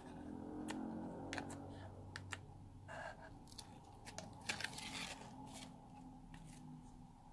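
Fluffy slime being poked and squished in a plastic tub, then pulled and stretched: a string of soft sticky pops and clicks, with a denser crackling burst about four and a half seconds in as it stretches and tears.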